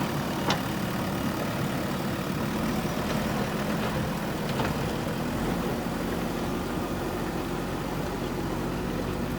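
JCB backhoe loader's diesel engine running steadily, with two short sharp clinks, about half a second in and again about four and a half seconds in.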